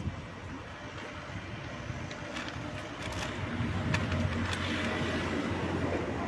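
A car passing on the street: engine hum and tyre noise growing louder about three seconds in.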